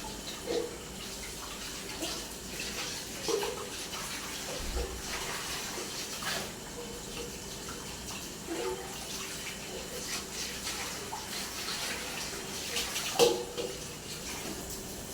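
Tap water running into a sink while dishes are washed, with scattered clinks and knocks; the sharpest knock comes near the end.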